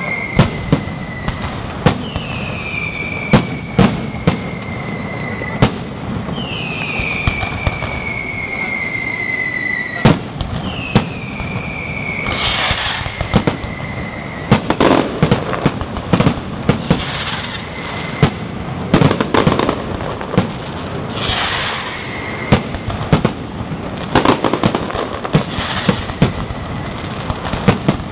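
Fireworks display: a steady run of sharp bangs, with several whistles falling in pitch over a second or two each in the first half, then bursts of dense crackling from about twelve seconds in.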